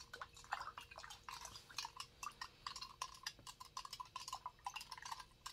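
A spoon stirring a powdered drink mix in a glass, tapping and clinking against the glass many times in quick, irregular strokes.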